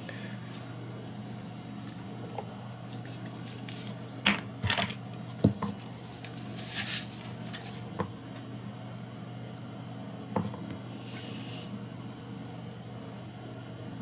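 A handful of small clicks and light clinks from fly-tying tools being handled at the vise, over a steady low hum.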